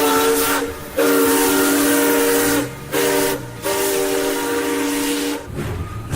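Steam locomotive chime whistle blowing four blasts, long, long, short, long, the grade-crossing signal, over a steady steam hiss.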